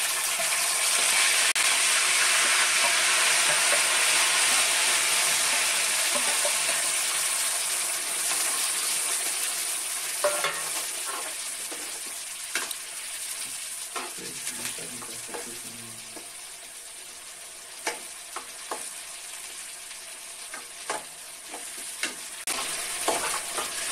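Chopped onion and green chilli paste sizzling loudly as it hits hot mustard oil in a metal kadai. The sizzle fades over the first several seconds. From about ten seconds in, a steel ladle stirs the paste and scrapes and taps against the pan in scattered clicks over a quieter sizzle.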